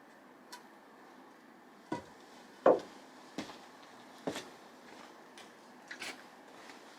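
Irregular wooden knocks and clicks, about seven in all, the loudest a little under three seconds in, as wood is handled or tapped in a small room.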